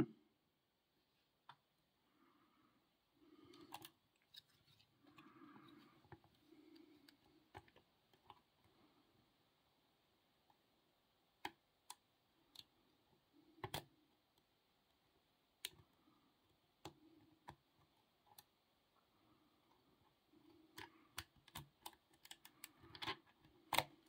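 Near silence broken by scattered faint clicks of a hook pick and tension wrench working inside a small brass padlock, coming more often near the end, with some soft handling noise a few seconds in.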